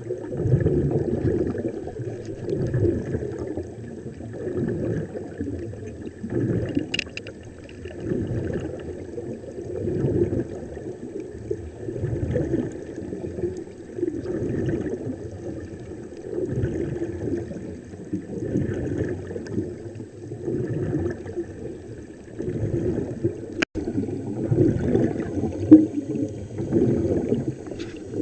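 Underwater bubbling and gurgling of air escaping from helmet divers' diving helmets, picked up underwater. It swells and fades about every two to three seconds.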